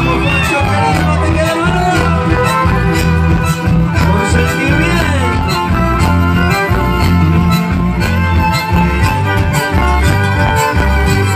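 Live band playing an instrumental passage: violins carry a gliding melody over electric bass, guitars and a steady drum beat.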